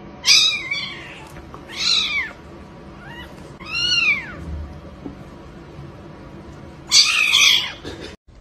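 Kitten meowing four times, high calls that rise and fall in pitch. The last call near the end is longer and rougher.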